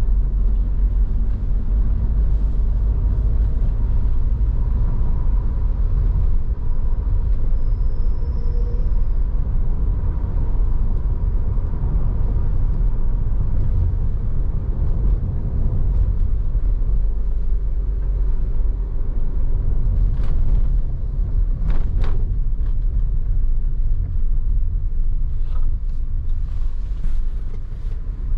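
Steady low rumble of road and traffic noise from a car driving along a city road, with a few sharp clicks in the last third.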